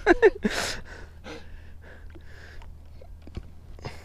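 A sharp gasp about half a second in, followed by quieter breathing, a couple of faint clicks near the end and a low steady hum.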